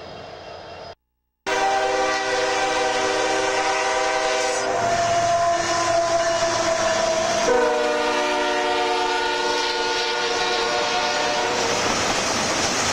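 Union Pacific AC45CCTE locomotive's air horn sounding in long blasts as it passes close by, over the rumble of the train. Near the end the horn stops and the wheels of the double-stack cars clatter past.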